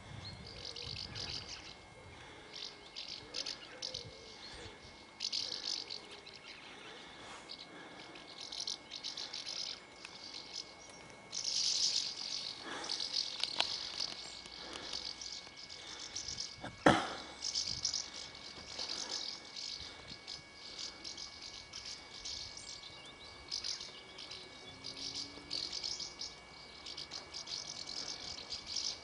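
A flock of house martins calling in flight: dry, chirruping twitters in repeated bursts. A single sharp click, the loudest sound, comes a little past halfway.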